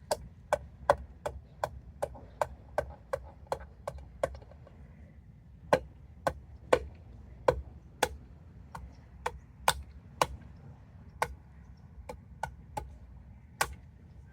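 A plastic wheel center hub cap being struck repeatedly with a rubber sandal to seat it flush in the wheel. It starts as a quick run of knocks, about three a second, then after a brief pause goes on as slower, spaced blows, a few of them sharper than the rest.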